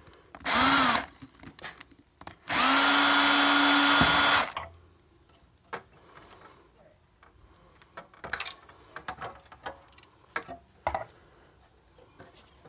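Handheld power drill-driver spinning briefly about half a second in, then running at a steady pitch for about two seconds, as screws are driven out of the router's circuit board. Light clicks and rattles of the loose hardware and board follow.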